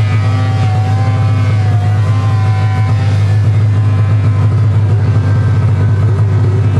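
Snowmobile engine running close by at a steady speed, loud and even. In the last couple of seconds a fainter pitch rises and falls above it.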